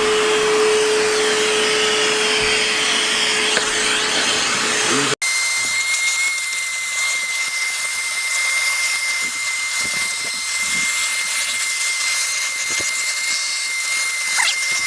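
Vacuum cleaner running steadily as it sucks debris out of a car's interior, with a steady hum. About five seconds in the sound breaks off for an instant and resumes with a thin high whine in place of the hum.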